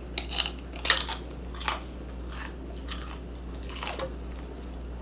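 A person chewing food close to the microphone, with a few short wet clicks and smacks, the sharpest about a second in.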